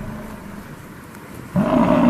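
Animal calls: a deep call fades away, then a new, pitched animal call starts abruptly about one and a half seconds in.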